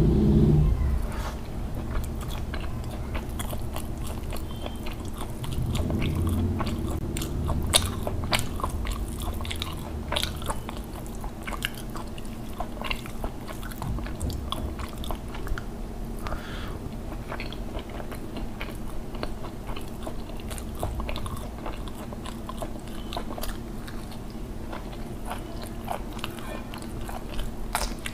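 Close-miked eating: a person chewing rice and fish curry eaten by hand, with many wet mouth clicks and smacks at irregular intervals, and a brief low rumble about six seconds in.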